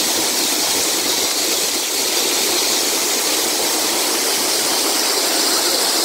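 Lake water pouring over a stone overflow weir and churning in white water below it: a steady, loud rushing hiss with no breaks.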